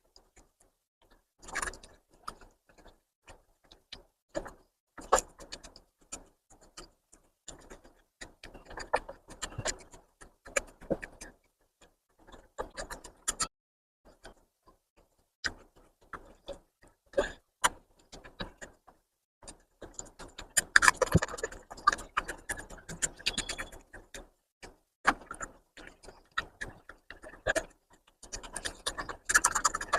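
Close-miked eating sounds: wet chewing and irregular smacking mouth clicks from someone eating mutton fat curry with rice, thickest about two-thirds of the way through and again near the end.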